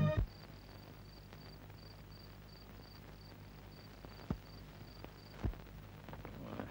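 A cricket chirping at about three chirps a second over a faint low hum, stopping about five seconds in. Two dull thumps come about four and five and a half seconds in, louder than the chirping.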